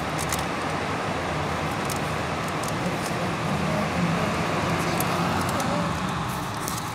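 Steady background traffic noise with faint distant voices.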